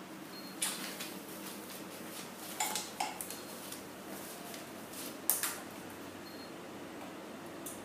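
Hands handling and fitting parts on a small air compressor: a handful of sharp plastic and metal clicks and knocks over a steady low hum.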